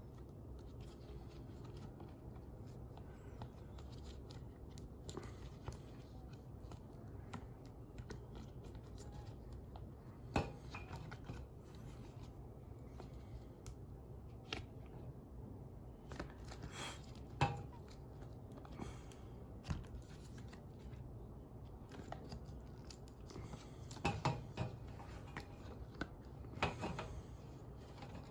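Toy packaging being handled and cut open: faint scissor snips, tearing and rustling of packaging, with scattered sharp clicks and taps, the loudest about ten seconds in and again around the middle and near the end.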